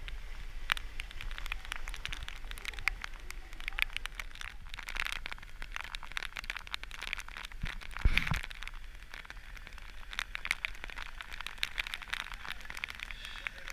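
Heavy rain: dense, irregular ticking of raindrops striking the camera and its microphone, over a steady low rumble, with a single low thump about eight seconds in.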